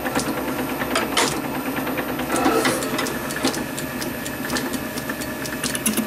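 Small metal lathe running, its drive and gears giving a steady mechanical clatter as the chuck spins up, with a knock about two and a half seconds in. Near the end a fast, even ticking sets in.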